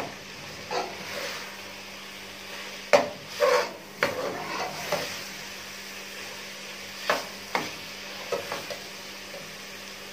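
Minced meat sizzling as it is fried dry on high heat in an aluminium pot, while a metal ladle stirs it, scraping and knocking against the pot at irregular moments, loudest about three seconds in. This is the final high-heat browning (bhuna) of the mince after simmering.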